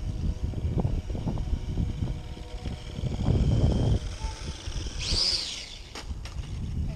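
Gusty low rumble of wind buffeting an outdoor camera microphone, loudest about three to four seconds in, with a brief high chirping call about five seconds in.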